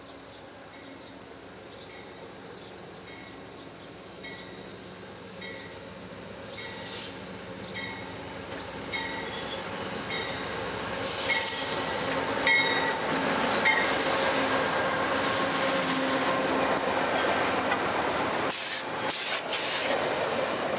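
Amtrak GE Genesis P42DC diesel locomotive pulling a passenger train into a station at low speed, growing steadily louder as it nears, with its bell ringing about once a second. In the second half the passenger cars roll past with rising wheel and rail noise.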